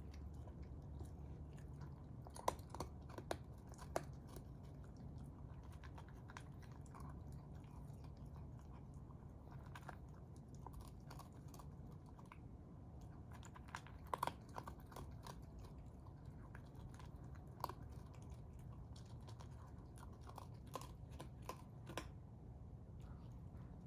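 Raccoon chewing, with faint crunching clicks at irregular intervals over a low steady hum.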